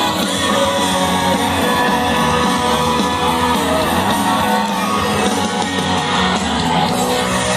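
Loud, continuous music with voices singing and shouting along.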